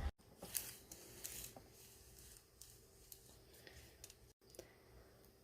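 Faint, scattered clicks and rustles of small plastic irrigation fittings and tubing being handled, as an anti-siphon valve is fitted to the outlet tube.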